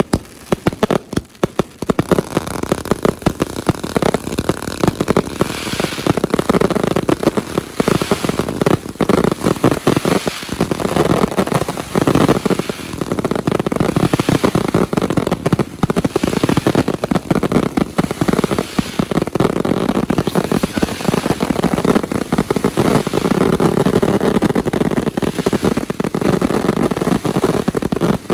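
Fireworks finale: a few separate bangs, then a dense, continuous barrage of bangs and crackling with hardly a gap between them.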